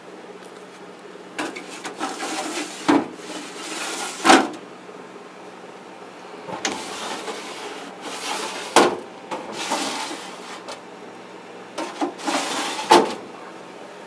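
A Frigidaire refrigerator-freezer being opened and shut three times. Each time there is a few seconds of rubbing and sliding that ends in a sharp thump as it closes, over a faint steady hum.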